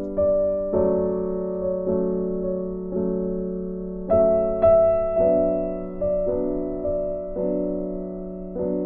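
Background music of piano chords struck about once a second, each chord fading before the next.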